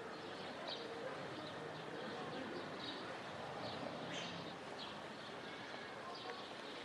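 Small birds chirping over and over in the trees, short high calls every half second or so, over a steady outdoor background hiss.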